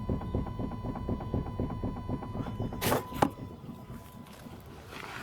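Rapid run of light, evenly spaced knocks from a Renault Clio 172's front steering, then a louder clunk about three seconds in, after which the knocking stops. This is the knock of a worn inner tie rod.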